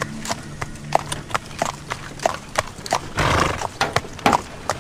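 Hooves of a horse pulling a buggy clip-clopping on a paved road at a walk, about three strikes a second, with a short burst of noise a little past three seconds in.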